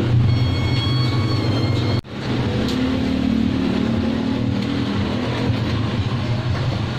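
Brazing torch flame running with a steady roar while the capillary tube is brazed onto the evaporator tubing. The roar breaks off abruptly about two seconds in, then returns.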